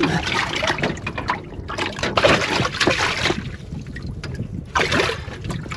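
Lake water splashing and sloshing in irregular bursts as a hand holds a large crappie in the water at the side of the boat to release it.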